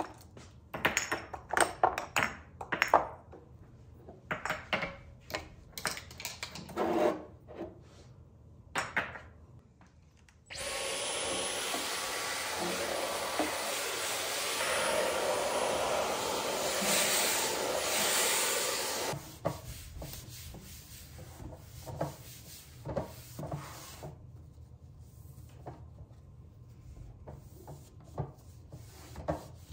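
Glass spice jars clinking and knocking as they are lifted out of a drawer. A cordless stick vacuum then runs for about eight seconds with a high whine, and after it cuts off there is soft rubbing with a few light knocks.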